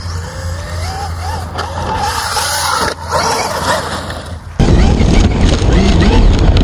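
Traxxas UDR radio-controlled truck's electric motor whining up and down in pitch with the throttle as the truck drives and slides in loose dirt. About two-thirds of the way in, the sound jumps suddenly to a much louder, rough rumble.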